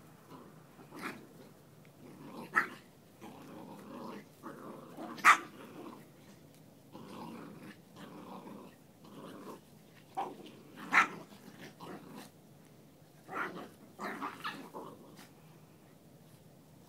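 A cockalier puppy and a Chihuahua play-fighting: on-and-off growling broken by several short, sharp barks, the loudest about five seconds in.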